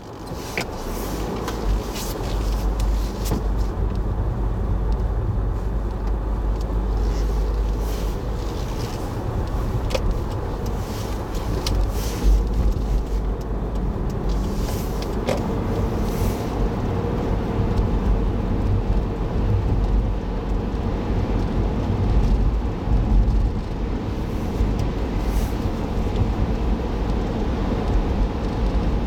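Car driving, heard from inside the cabin through a dashboard recorder: a steady low rumble of road and engine noise, with scattered light clicks and knocks.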